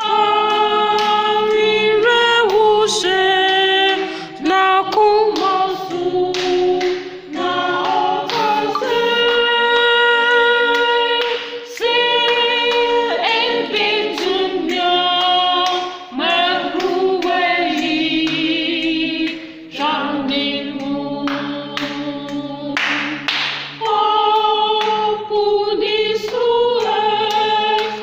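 A church singing band, a choir of several voices, singing a hymn in harmony without instruments, with sharp claps keeping time throughout.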